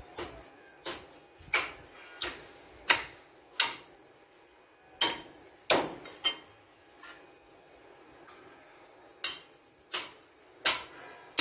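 Meat cleaver chopping bong (beef shank) on a round wooden chopping block: sharp chops about every 0.7 seconds, in three runs with short pauses between, cutting the shank into large pieces.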